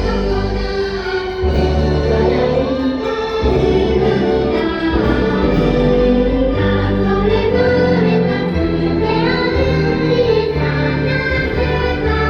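Parade music: a choir singing over orchestral backing, playing without a break.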